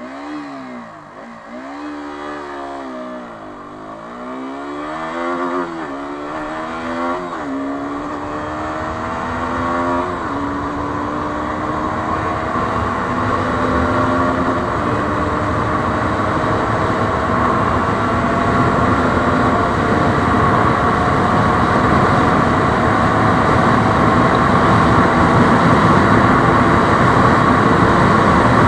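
KTM Duke 125's single-cylinder four-stroke engine accelerating hard from a standstill, its pitch rising then dropping back at each upshift through the gears. It then holds high and nearly steady in sixth gear near its top speed of about 123 km/h, with wind noise growing as speed builds.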